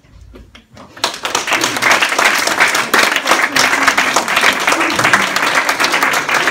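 Audience applauding: many hands clapping together, starting suddenly about a second in and going on steadily.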